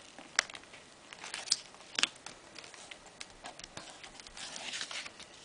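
Hands handling and pressing a layered paper greeting card onto its cardstock base: a few sharp taps and clicks in the first two seconds, then soft paper rustling near the end.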